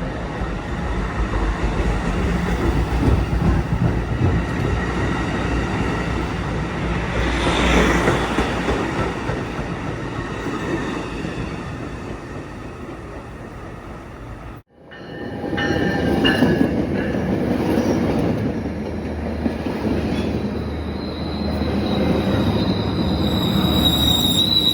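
A train rolling past on the rails, a steady rumble with wheel noise. After a brief dropout about fifteen seconds in, high-pitched wheel squeal rises and is loudest near the end.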